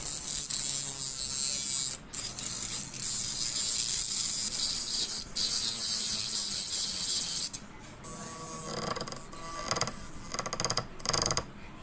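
Homemade mini grinder, a small motor in a PVC pipe spinning a grinding wheel, grinding the edge of a utility knife blade: a steady, high hiss broken twice for a moment as the blade comes off the wheel. About eight seconds in the sound turns rougher, lower and uneven as a metal rod is held to the wheel.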